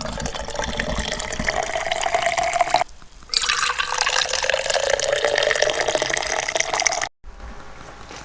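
Coffee poured from a French press into a mug, in two pours, the pitch of the filling mug rising slowly as it fills.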